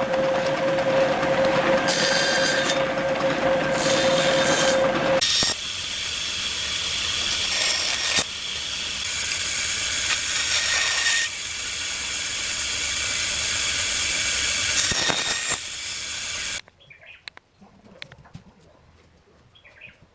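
A woodworking power tool running on wood: a steady whine over a hiss, the sound changing about five seconds in and stopping suddenly about sixteen seconds in. A few faint light taps follow.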